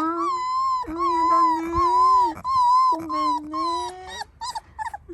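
A one-month-old golden retriever puppy whining: a run of long, high-pitched cries about a second each, breaking into shorter, fainter whimpers near the end.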